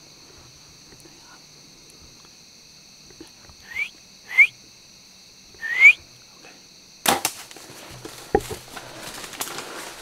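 A compound bow shot: a sharp crack of the string and limbs about seven seconds in, followed by rustling and a low thump. Before it come three short, loud rising squeaks over a steady high insect drone.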